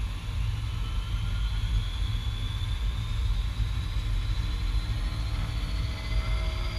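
A C-130T Hercules' Allison T56 turboprop engine spooling up during start, a whine rising steadily in pitch over a steady low rumble.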